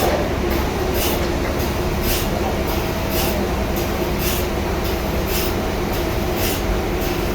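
Sawmill machinery running steadily with a low hum, a short hissing swish recurring about once a second.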